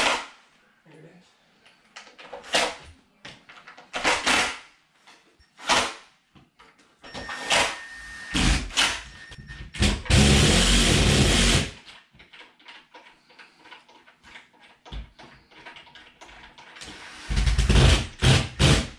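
Cordless drill driving screws in two short runs, one about a second and a half long near the middle and a shorter one near the end, bolting the base plinth onto the bottom of a floorstanding speaker. Sharp knocks and handling clatter come in between.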